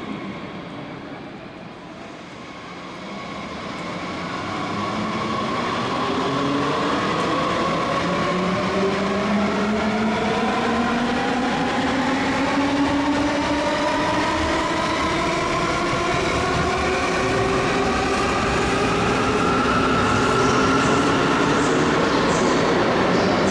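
Electric S-Bahn train pulling away: its motor whine, several tones together, climbs slowly in pitch as it accelerates, growing louder after the first couple of seconds.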